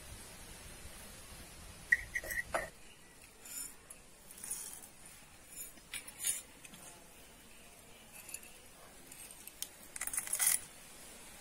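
A sharp metal clink with a short ring, then scattered light crackles, then near the end a brief rapid clatter of dried black gram seeds poured into a miniature aluminium pan.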